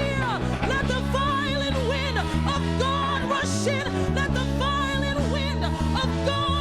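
Worship music: a voice singing in wavering, bending runs over sustained chords and a low bass line that changes every second or so.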